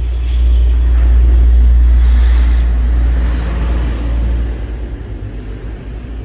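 A loud low rumble that swells, holds for a few seconds and fades away about four and a half seconds in.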